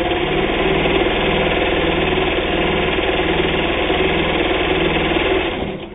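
New Home electric table-top sewing machine, driven through worm gears, running flat out and stitching flannel-backed denim: a steady, rapid mechanical clatter of needle and drive over the motor's hum, stopping shortly before the end.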